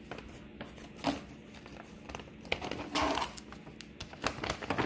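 Plastic treat bag crinkling and rustling in irregular crackles, loudest about three seconds in.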